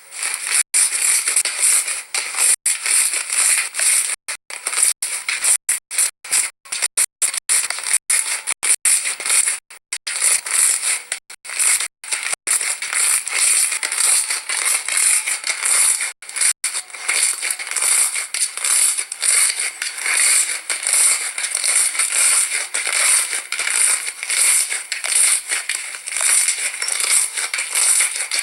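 Slime being squeezed and pressed by hand, with a wet crackling and crunching texture. It cuts in and out abruptly in the first half, then pulses in a steady rhythm of about one and a half presses a second.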